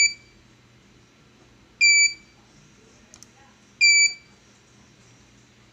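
K Guard AR821 CCTV DVR's built-in buzzer sounding its beep error alarm: a short, high-pitched beep about every two seconds. The alarm is the sign of a faulty hard disk drive that will not format and has to be replaced.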